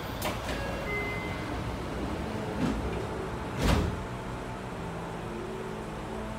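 Sliding passenger doors of a Tokyu 2000 series commuter train closing, with a smaller knock and then a loud thump as they shut about three and a half seconds in, over the steady hum of the standing train.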